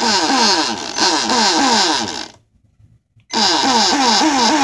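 Remote-control toy boat's motor running out of the water, a loud buzzing whine that wavers downward in pitch several times a second. It cuts out a little over two seconds in and starts up again about a second later.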